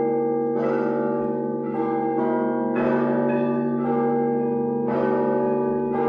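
Church bells ringing in a continuous peal: fresh strikes come about once or twice a second, each ringing on over the steady hum of larger, deeper bells.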